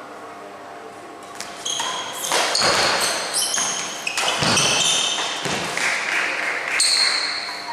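Sports shoes squeaking repeatedly on an indoor badminton court floor during a rally, many short high squeaks from about a second and a half in, mixed with a few louder noisy bursts.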